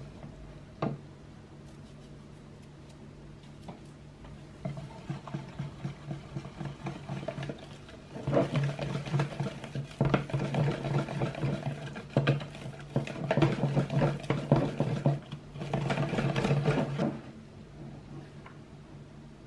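Wire whisk beating flour into cake batter in a plastic bowl: a rapid clatter of the wires against the bowl, light at first and then hard for about nine seconds before it stops. A steady low hum runs underneath.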